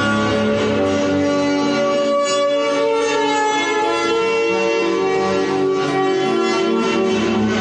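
Slow instrumental guitar music, long held notes ringing over one another.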